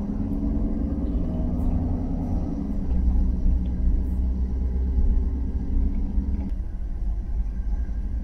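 Car driving slowly, heard from inside the cabin: a steady engine hum over a heavy low road rumble. The hum drops away about six and a half seconds in, leaving the rumble.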